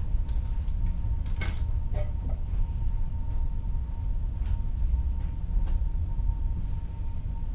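Steady low rumble of a ship heard inside a cabin, with a faint steady hum and scattered light creaks and clicks.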